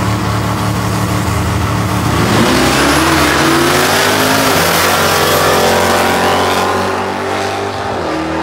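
Twin-turbo SN95 Mustang running steadily at the drag strip start line, then launching hard about two seconds in: the engine rises in pitch under full throttle and stays loud as the car pulls away, easing off near the end as it heads down the track.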